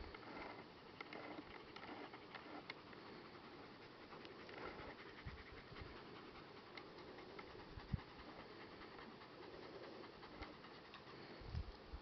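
Faint panting of a dog, with two short low thumps, one about two-thirds of the way through and another near the end.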